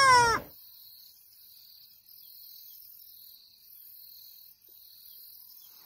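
A ring-tailed lemur's call, a loud wail that falls in pitch, ends about half a second in. After it there is only faint, high-pitched insect chirring.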